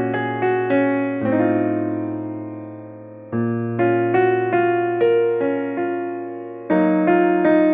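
Background piano music: a gentle melody of struck notes over held bass notes, with a couple of longer chords left to fade.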